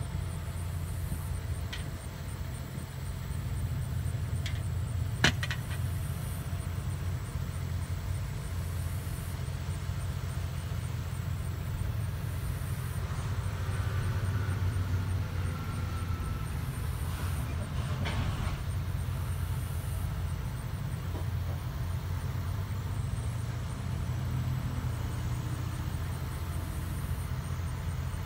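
A truck engine idling steadily with a low rumble, with a sharp click about five seconds in.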